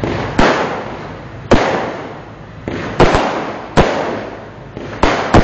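Fireworks going off: about seven sharp bangs in quick irregular succession, two of them close pairs, each trailing off in a long rolling echo.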